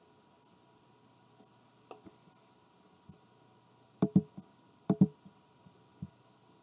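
Quiet small-room tone with a faint steady hum, broken by a few short knocks and clicks: a faint one about two seconds in, then two close double knocks about four and five seconds in, and a soft one near the end.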